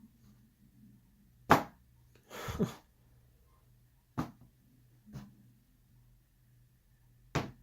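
A stock Redcat Gen 8 RC crawler tire being dropped onto a hard surface, landing with sharp knocks about three times, each a couple of seconds apart.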